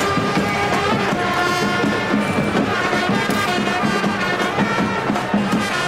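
Music with brass instruments playing continuously: several melody lines over a steady low drone, the kind of brass band heard at an Indian wedding procession.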